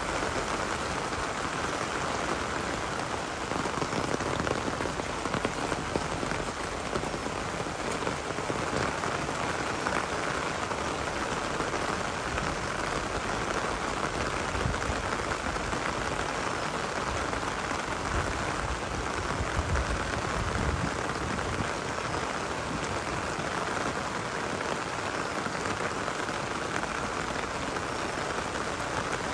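Rain falling steadily, a dense patter of drops on surfaces.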